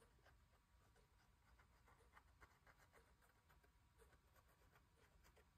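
Near silence, with faint, scattered ticks and scratches from a cardboard panel being handled.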